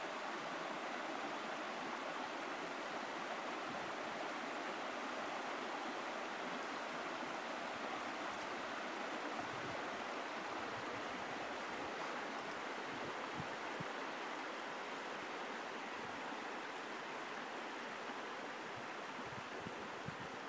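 Steady rush of flowing river water, an even hiss with no pauses.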